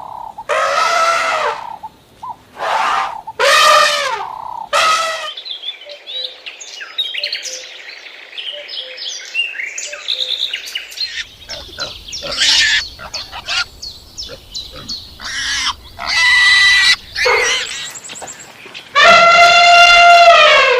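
A run of different animal calls. It opens with several short bleats, goes on to a long stretch of bird chirps and twitters, and ends with one long, loud call.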